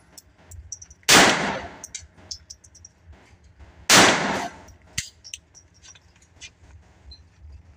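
Two shots from a Mauser M20 .22 LR pistol, about three seconds apart, each ringing off in the indoor range. Faint clicks come between them.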